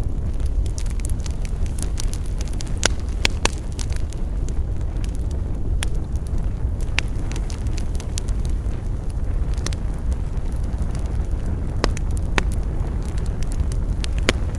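Wood fire burning with a steady low rumble and sharp crackles and snaps scattered throughout, about eight of them standing out clearly.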